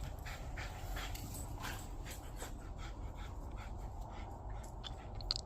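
A dog panting in quick, irregular breaths.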